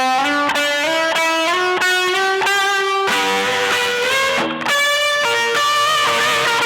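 Electric guitar played through an EarthQuaker Devices Zoar distortion pedal, improvising single-note lead lines. One note slides slowly upward partway through, and there is a brief pause about four and a half seconds in.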